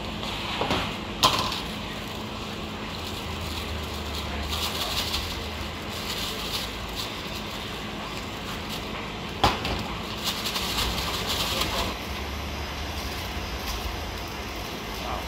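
Handling sounds of shaved ice being packed into a plastic takeaway bag: the bag rustles and the plastic cup knocks, with two sharp knocks standing out, about a second in and again about nine seconds in, over a low steady background rumble.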